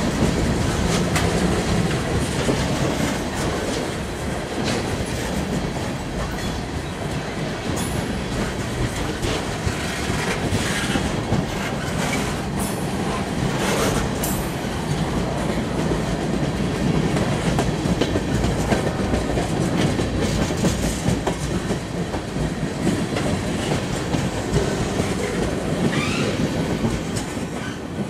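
Freight train of tank cars and a centerbeam flatcar rolling past close by, its wheels clicking over the rail joints, with scattered sharp clanks. The sound fades near the end as the last car goes by.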